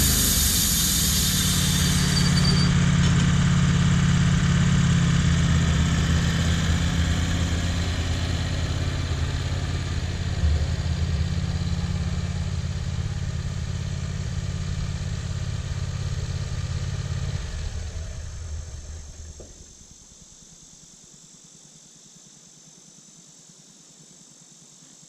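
Wood-Mizer LT15 portable sawmill's gas engine running, with a high hiss over it that stops about two seconds in. The engine runs on steadily, then winds down and stops about eighteen seconds in, leaving only faint background sound.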